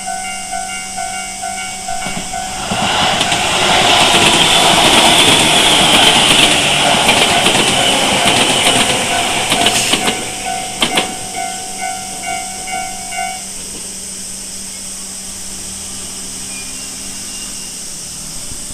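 Japanese level-crossing warning bell ringing in a steady repeating electronic ding-ding, with a train passing loudly over the crossing from about three seconds in. A couple of wheel clacks come near the end of the pass, and the bell stops a few seconds later.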